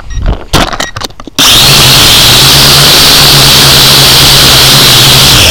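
A few knocks and rattles, then about a second and a half in a small motor starts suddenly. It runs loud and steady with a low hum and a hiss, overloading the recording.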